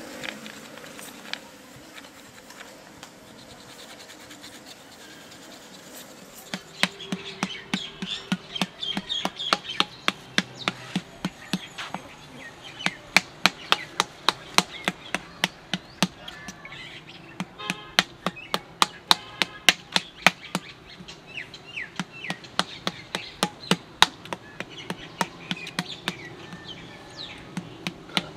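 Flat wooden paddle beating the body of a round clay pot, a run of sharp knocks about three a second that starts a few seconds in. This is the paddle-beating that thins and rounds the pot's body.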